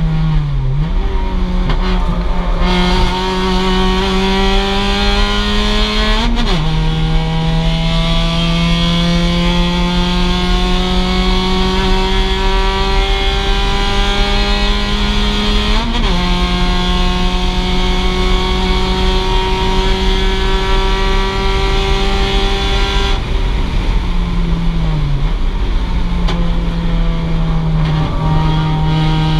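A 2006 Mazda MX-5 race car's four-cylinder engine under power, its pitch climbing steadily with upshifts about six and sixteen seconds in. About twenty-three seconds in the engine lifts off, briefly blips on a downshift, and then pulls again.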